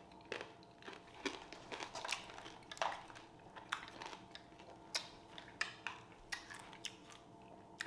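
Faint, irregular crunching and clicking of a hard candy shell being chewed: a strawberry coated in boiled sugar and melted Jolly Ranchers, a few crunches a second.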